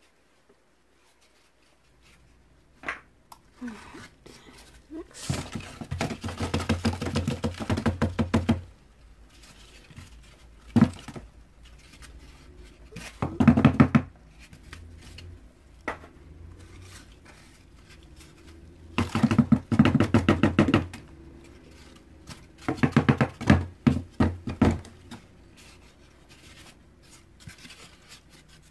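Cardboard egg flats rapidly tapped and shaken against a plastic bin to knock dubia roaches off. It comes in about four bursts of quick knocks, each one to three seconds long, with a few single taps between them.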